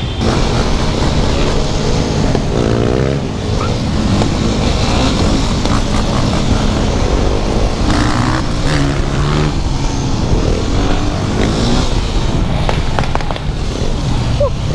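Off-road motorcycle and quad engines running on a group street ride, heard from the rider's own machine over wind noise. The engine note climbs and falls as the throttle is worked, about two seconds in and again around eight seconds.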